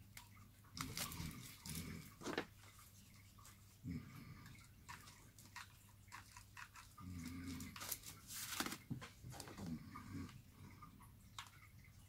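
Crumpled aluminium foil crinkling and crackling as it is handled, with scattered small clicks and knocks.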